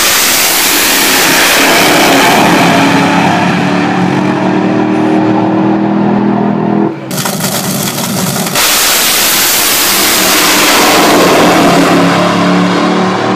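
Drag-racing car engines at wide-open throttle down the strip, a loud, continuous, rasping engine note. It dips briefly about seven seconds in, then comes back at full strength.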